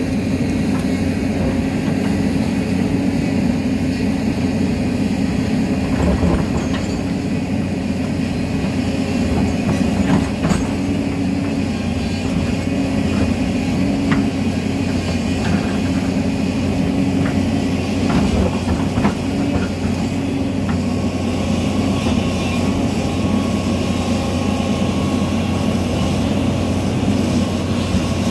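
Hyundai Robex hydraulic excavator's diesel engine running steadily under working load while the bucket digs into an earth bank, with a few short knocks as it strikes soil and rock.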